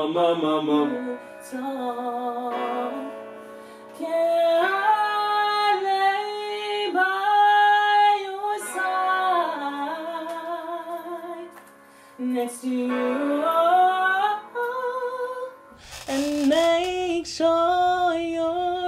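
A man singing long held notes with vibrato, gliding between pitches. About 16 s in, it changes to him singing unaccompanied in a small room.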